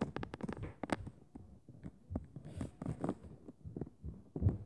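Heavy footfalls and thuds from the upstairs apartment, heard through the ceiling: irregular stomping impacts, several a second at first, then more spaced out, with the loudest thump near the end.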